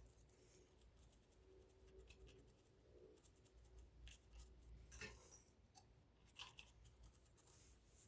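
Faint, scattered small clicks and scrapes of hands and tools handling the metal parts of a vintage sewing machine while it is being greased.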